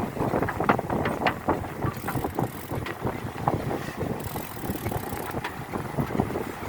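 Mountain bike riding along a road: rumbling tyre noise and irregular rattles and knocks from the bike, with bursts of hiss from wind on the microphone.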